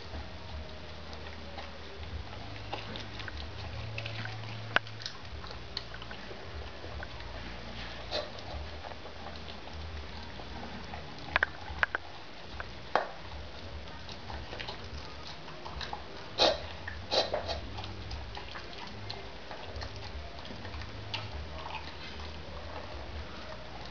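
A dog eating cooked rice, vegetables and shredded chicken from a bowl: irregular chewing with scattered sharp clicks and knocks, louder in a few clusters a little before halfway and about two-thirds of the way through, over a steady low hum.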